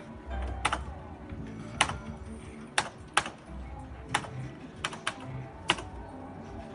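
Sharp plastic clicks of a Merkur slot machine's play buttons being pressed, about eight at uneven spacing, to spin and stop the reels, over the machine's soft electronic game tones.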